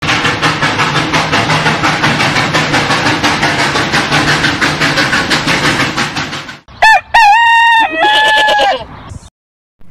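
Sound effects: a steam train chuffing in a fast, even rhythm, which stops at about six and a half seconds. Then a rooster crows cock-a-doodle-doo, the loudest sound here, ending on a long note that falls away.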